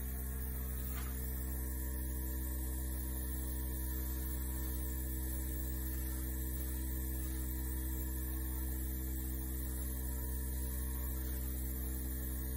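Small air compressor running, a steady electric hum with evenly spaced overtones and a faint high hiss, as it feeds air to a hand-held blow nozzle.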